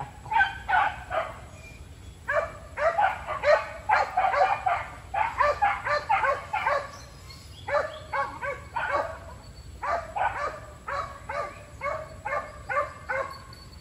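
Hunting dogs barking in runs of quick, high barks, several a second, with short breaks between the runs.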